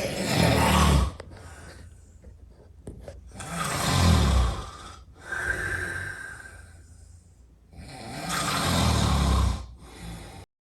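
A person snoring very loudly: three heavy snores about four seconds apart, with softer breathy breaths between them, one with a brief whistle in it.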